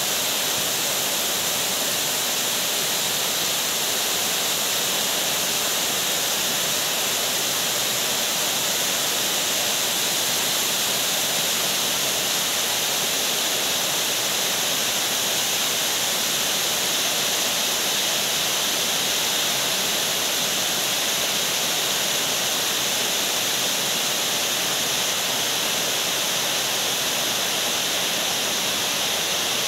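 Heavy rain falling in a steady downpour: a dense, even hiss with no let-up or changes.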